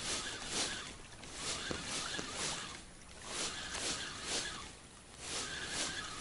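Small waves lapping and splashing against the hull of a boat, in irregular surges about once or twice a second.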